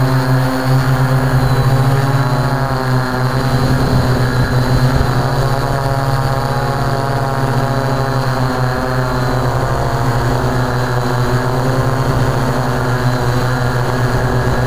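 Multirotor quadcopter's electric motors and propellers droning steadily from the onboard camera, several pitched hums stacked together and wavering slightly in pitch.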